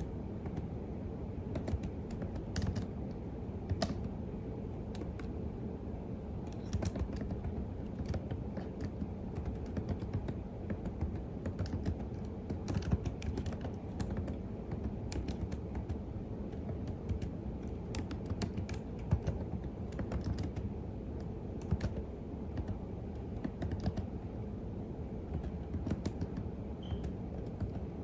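Computer keyboard typing: a steady, irregular stream of key clicks at an unhurried pace, over a constant low background hum.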